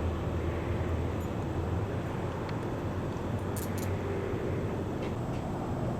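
Steady low rumble of a nearby motor vehicle, with a few faint clicks over it.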